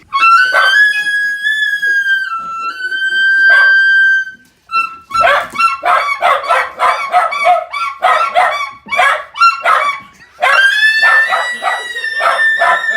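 Elk bugle call blown on a diaphragm caller: a long high whistle that bends slightly in pitch, then a fast run of grunting chuckles, then a second high whistle broken by chuckles near the end.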